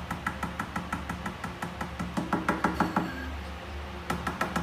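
Fingers tapping rapidly on a glass tabletop, about seven light knocks a second, stopping for about a second near the end and then starting again.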